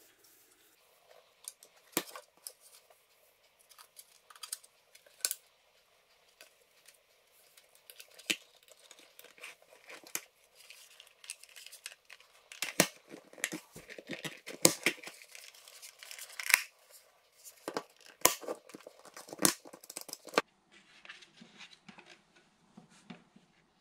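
Plastic clicks and crackles from a VW Golf Mk6 auto-dimming rear-view mirror housing being handled and pressed shut, with a dense run of sharp snaps in the middle as the housing halves are squeezed together. Near the end it gives way to softer rustling as the mirror's cable is handled.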